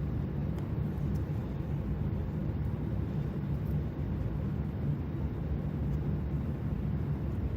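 A steady low rumble, with a few faint light clicks and scrapes from a blade prying the old points base gasket off a Honda CT90's engine case.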